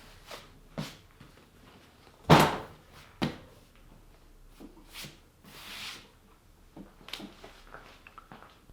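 Scattered knocks, clicks and clunks of work on a seat, with one loud thump about two seconds in and a sharper knock a second later.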